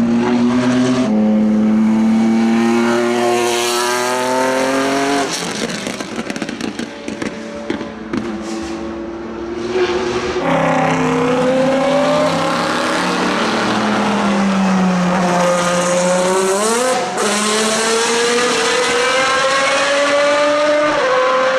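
Endurance race car engines at high revs. The pitch climbs through upshifts and falls back on the downshifts, with a quieter stretch in the middle, then a sharp rev blip and more hard acceleration.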